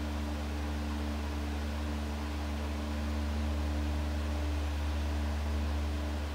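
Steady low hum with a constant hiss underneath; nothing starts or stops.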